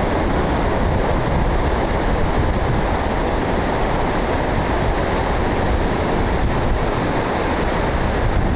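Ocean surf washing steadily, with wind noise on the microphone, an unbroken rumbling roar with no distinct waves or other events standing out.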